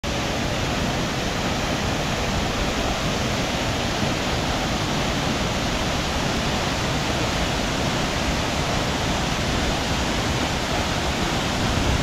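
Minoh Falls, a tall waterfall, pouring into its plunge pool: a loud, steady rush of falling water.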